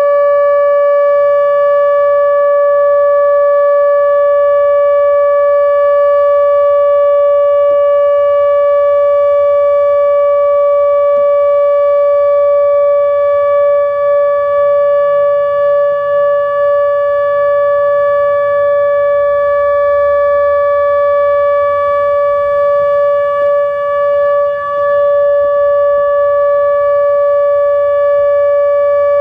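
ATI HPSS-32 electronic outdoor warning siren sounding its steady alert tone, one loud unwavering pitch with no rise or fall. This is the steady alert signal of a scheduled nuclear-plant siren test.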